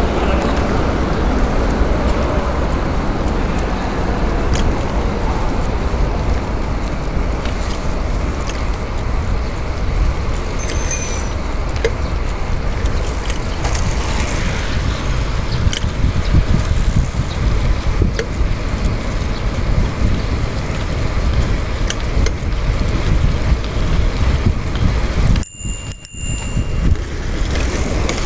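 Rushing wind and rolling noise on a chest-mounted GoPro during a bicycle ride, with the constant small clicks of the bike's chain lock rattling. The sound drops out briefly near the end.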